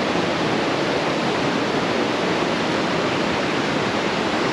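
A river rushing steadily close by, a dense, unbroken wash of water noise.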